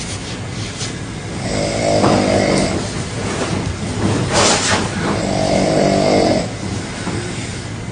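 A person snoring loudly: two long pitched snores, each about a second, repeating at a slow even rhythm, with a breathy exhale between them.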